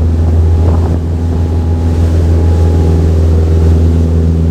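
Boat engine running steadily under way, a loud, even low drone with some wind on the microphone.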